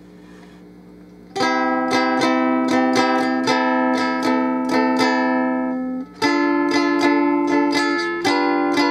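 V-shaped electro-acoustic ukulele strummed with a pick through an amplifier, its EQ just adjusted for more bass. The chords start about a second and a half in, with a short break just past the middle. Before the first chord only a low amplifier hum is heard.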